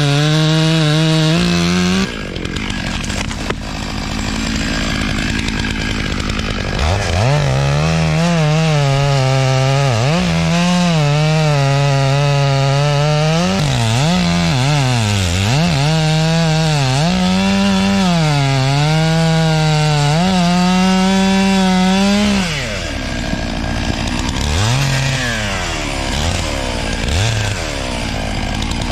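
Two-stroke chainsaw at full throttle cutting maple, its engine note sagging and recovering over and over as the chain bites. It eases off about two seconds in, comes back up a few seconds later, and drops to a lower speed near the end with a couple of short revs.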